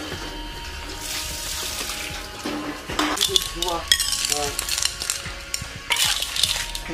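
Food sizzling as it fries, with sharp clinks of a utensil against the pan and a few brief voices in the background.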